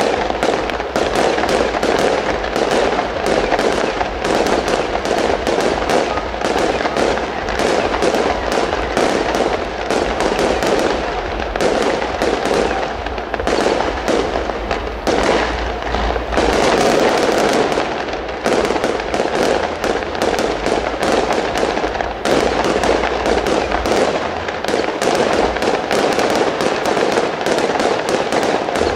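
Aerial fireworks display: a dense, continuous barrage of many rapid bangs and crackles from bursting shells, with no pause.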